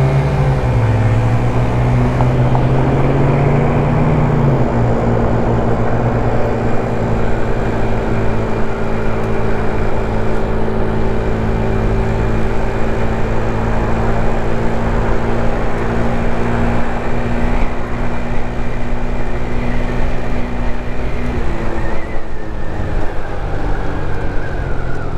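GY6 50cc scooter's single-cylinder four-stroke engine running steadily under way at cruising speed. Its even note changes about 21 seconds in.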